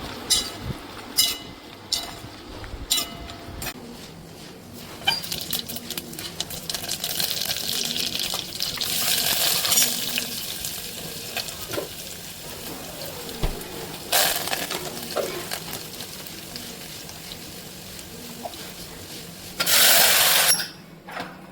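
Kitchen sink work: clinks of dishes and utensils with stretches of running tap water, including two short strong gushes of water near the middle and near the end.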